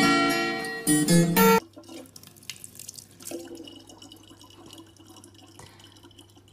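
Plucked acoustic guitar music that cuts off suddenly about a second and a half in. It is followed by a much quieter stretch: a faint running water tap over a steady low hum.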